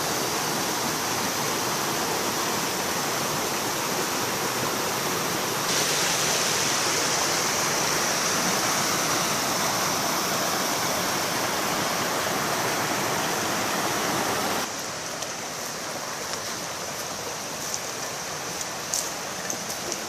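River water rushing steadily. The sound gets a little louder about six seconds in and drops clearly about fifteen seconds in, with a few faint clicks near the end.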